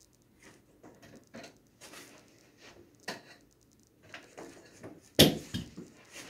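Foam board and spring clamps being handled on expansion poles: small clicks, taps and rustles, then one sharp clack a little over five seconds in, with a few lighter knocks after it, as the board is pulled off the pole.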